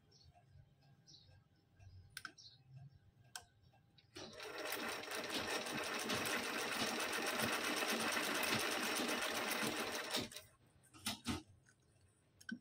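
Old black sewing machine stitching a seam, starting about four seconds in and running fast and evenly for about six seconds before stopping suddenly. A few light clicks of the mechanism come before and after.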